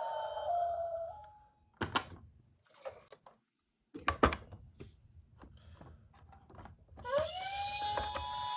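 A two-tone ambulance siren cuts off about a second in. A few sharp clicks and knocks follow, the loudest about four seconds in. Near the end a new siren tone rises and holds steady.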